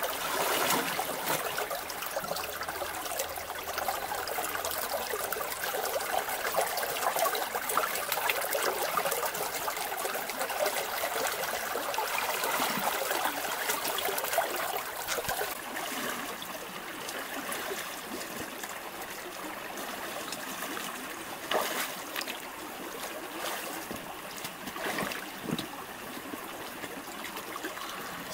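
Shallow rocky stream trickling steadily, with water stirred by someone wading in it; the flow is a little louder in the first half, and a few short sharper splashes come near the end.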